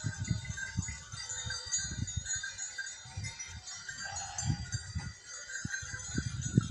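Many small livestock bells on a grazing flock of sheep and goats tinkling continuously, with irregular low rumbling underneath.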